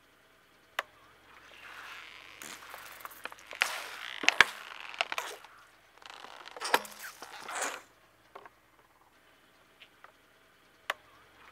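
Liquid-filled plastic bottles crushed under a slowly rolling car tyre: crackling, creaking plastic with several sharp pops as the bottles burst. It comes in two bouts, the second starting about six seconds in.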